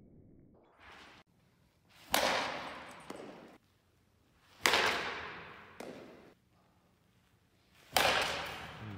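Baseball bat striking a ball off a batting tee three times, each a sharp crack that echoes around a large indoor hall, with a softer knock about a second after each.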